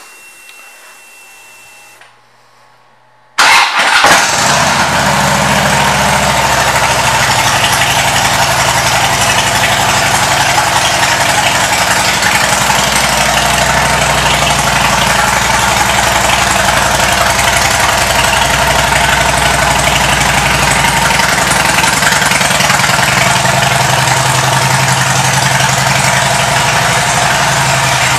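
2008 Harley-Davidson Ultra Classic's Twin Cam 96 V-twin, fitted with aftermarket Rinehart exhaust, is started about three seconds in. It catches at once and settles into a loud, steady idle.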